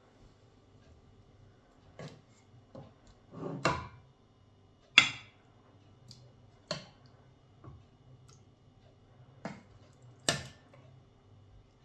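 Irregular clicks and knocks of household objects being handled and set down, about eight in all, the loudest about five seconds in, over a faint steady low hum.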